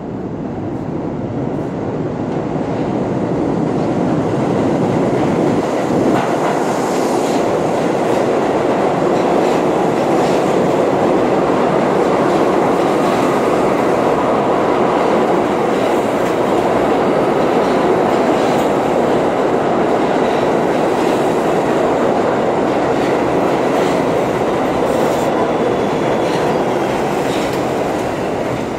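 New York City subway train pulling into an underground station. Rumble and wheel clatter build over the first few seconds, hold steady with sharp clicks while the cars pass, and ease off near the end as the train slows to a stop.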